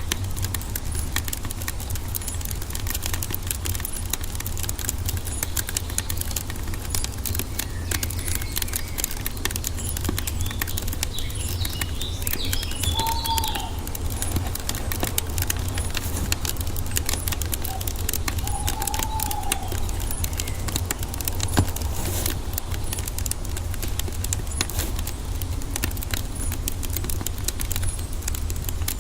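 Wood fire crackling steadily with dense pops and snaps over a low rumble. A bird calls briefly a few times around the middle.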